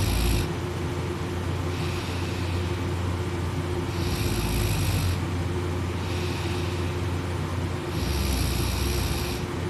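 A person snoring in deep sleep: three loud snoring breaths about four seconds apart, with softer breaths between them, over a steady low hum.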